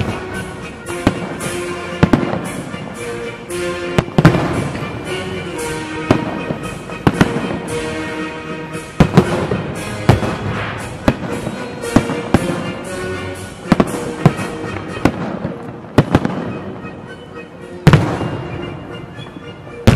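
Aerial firework salute: shells bursting one after another in an irregular run of sharp bangs, with crackling between them, and music playing underneath.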